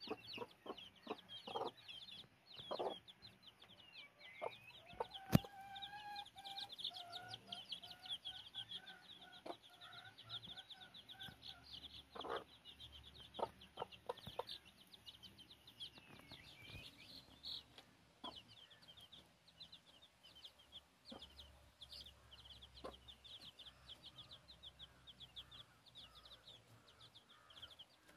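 Week-old chicks peeping rapidly and continuously, high and thin, while a mother hen clucks low in a run of calls from about five to twelve seconds in. Scattered light clicks, with one sharp click about five seconds in.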